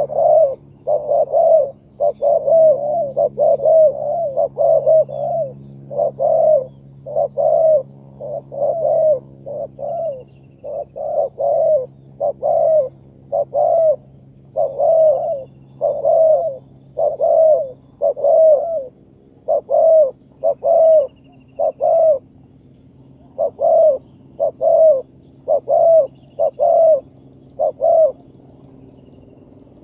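Spotted dove cooing over and over: short, quick coo notes, some single and some in rapid runs of two or three, a typical decoy call for luring wild doves.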